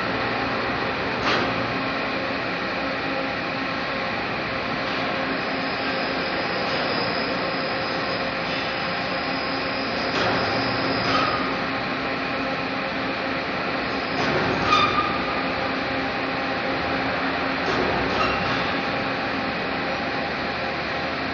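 Steady drone of steel pipe factory machinery, with several constant hum tones, broken by four short knocks, the loudest about two-thirds of the way through.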